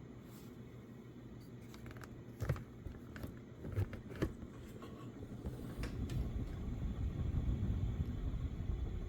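Halsey ceiling fan running, with a few sharp clicks and knocks about two to four seconds in, then a low rumble that grows louder from about six seconds in.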